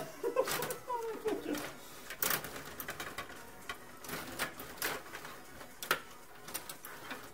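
Stiga table hockey game in play: irregular sharp clicks and clacks as the rods are worked and the puck and players strike each other and the boards.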